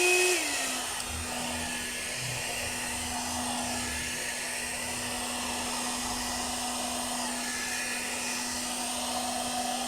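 Hot-air hair dryer brush running on its medium setting: the motor's hum settles slightly lower in pitch just after switch-on, then holds as a steady hum over the rush of blown air.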